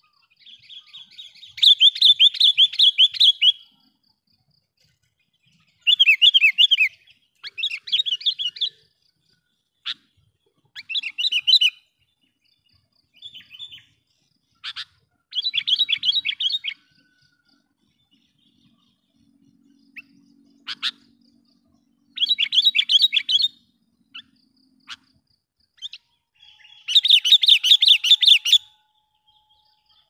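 Sooty-headed bulbul (kutilang) calling in about seven runs of rapid, loud, sharp chattering notes, each lasting one to two seconds, with single short notes between them. These are the lure call of a pikat bird, meant to provoke and draw in wild bulbuls.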